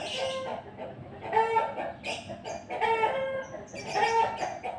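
Short, pitched animal calls repeated about once a second, five in all.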